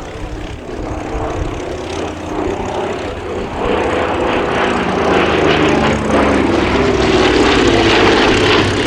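Twin radial piston engines and propellers of a Douglas A-26 Invader (Pratt & Whitney R-2800s) running in flight, growing clearly louder from about three and a half seconds in as the aircraft comes closer.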